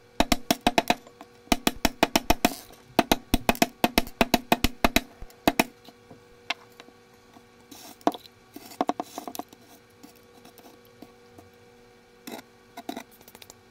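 Small hammer pounding expanded clay pellets (Hydroton, LECA) on a wooden tabletop, crushing them: a quick run of sharp knocks, several a second, for about five and a half seconds, then a few scattered taps.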